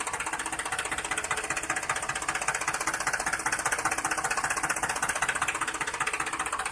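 Small motor of a mini model tractor running steadily with a rapid, even knocking pulse.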